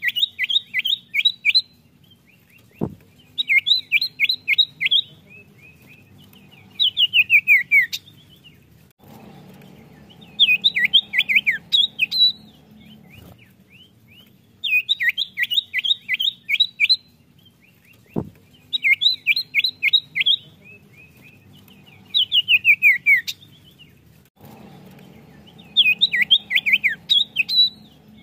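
Common iora (cipoh) singing: repeated phrases, each a quick run of sharp, whistled chirps lasting a second or two, some falling in pitch, every three to four seconds. A sharp click sounds twice.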